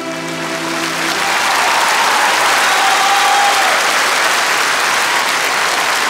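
The band's last chord rings on and fades about a second in, then a large concert-hall audience applauds.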